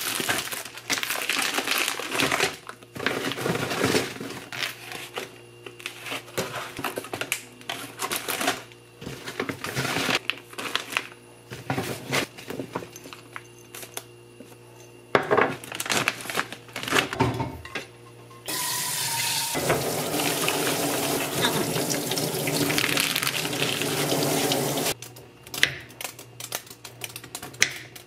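Groceries and their plastic packaging being handled on a wooden board, with short rustles and knocks. Then a tap runs steadily for about six seconds. Near the end come a few sharp knife clicks on the board.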